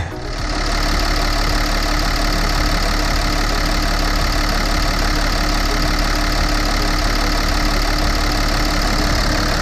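2009 Hyundai Veracruz's V6 diesel engine idling steadily after a full service that included new glow plugs and injector and intake cleaning.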